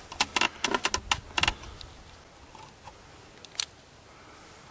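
Camera handling noise: a quick run of sharp clicks and rattles as the camera is adjusted and aimed at the target, then one more click a few seconds later.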